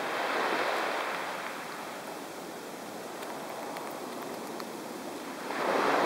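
Small waves washing onto a sandy beach: a steady rush of surf that swells twice, once at the start and again just before the end.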